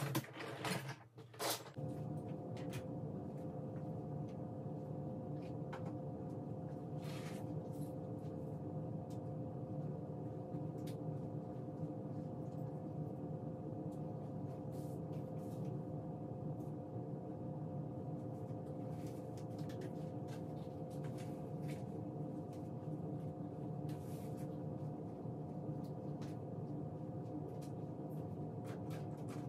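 A few knocks and clatters, then a kitchen appliance switches on about two seconds in and runs with a steady, even hum, with a few light clicks over it.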